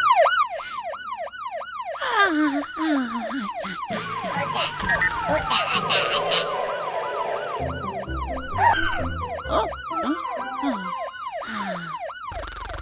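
Fire truck siren wailing in quick rising-and-falling sweeps, several a second, over background music. It breaks off for a few seconds in the middle and then starts again.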